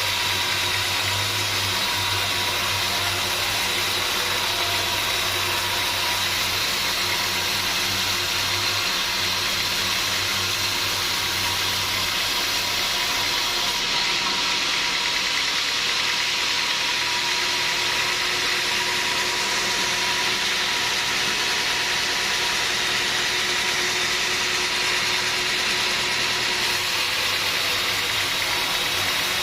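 Sawmill machinery running steadily, a continuous mechanical noise with a high steady whine over it. The low hum drops away about halfway through.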